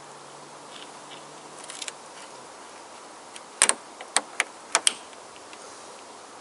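Hose-clamp pliers working the spring clamp on a car's radiator hose: about five sharp metallic clicks in quick succession a little past the middle, over a faint steady hiss.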